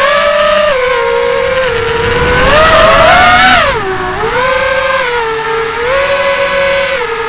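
A mini-quad racing drone's four EMAX RS2205 2600KV brushless motors, spinning 5-inch tri-blade props, whining as heard through the onboard action camera's mic. The pitch climbs to a peak about halfway through, drops sharply, then rises and falls again with the throttle.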